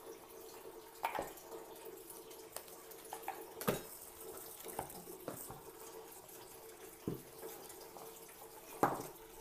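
Scattered light knocks and taps of cardboard packaging and small oil bottles being handled on a table, over a faint steady hum.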